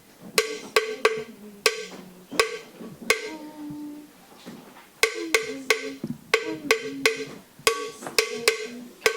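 A string of sharp struck notes, each ringing briefly at one of a few different pitches, coming irregularly at about two or three a second, with a gap of more than a second in the middle.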